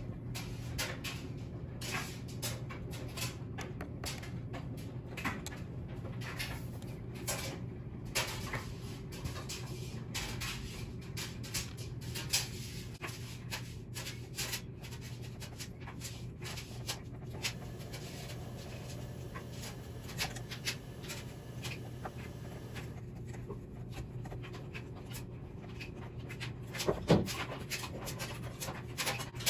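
Hand tools and buggy parts clicking and knocking as a hex driver works the screws of an RC buggy's shock tower. There are irregular small clicks throughout and a louder knock near the end, over a steady low hum.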